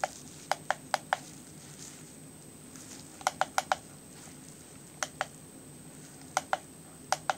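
Plastic buttons on a kids' digital alarm clock clicking as it is set, in quick groups of two to five presses with short pauses between.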